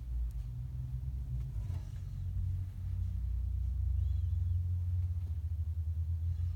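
Steady low rumble, growing louder about three seconds in.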